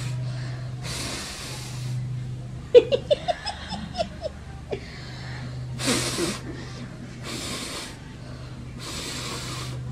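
About four hard puffs of breath blown through a surgical face mask, each a short rush of air, at a clay oil lamp's flame. A woman laughs in a quick run of bursts about three to five seconds in, the loudest sound.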